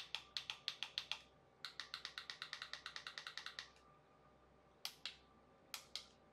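Thumbs typing on a smartphone's touchscreen keyboard, its key-click sounds coming as a short run of crisp clicks, then a fast run of about ten a second, then two quick pairs near the end.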